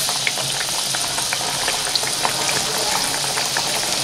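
Hot oil sizzling steadily around a ladleful of banana malpua batter freshly poured into a deep pan for deep-frying, with scattered small pops and crackles.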